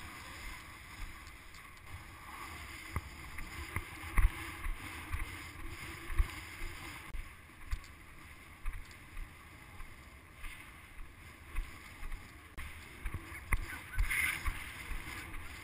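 Wind buffeting the camera microphone over a rush of sea water, with many irregular low thumps.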